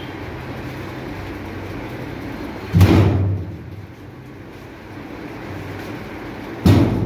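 Two loud thumps about four seconds apart, each fading out over about half a second, over a steady low rumble, during a dog's bath in a steel grooming tub.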